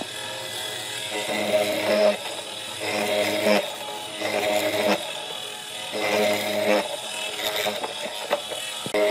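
Power tool motor working a log, running in repeated spells of about a second, its pitch steady within each spell and dropping away between them.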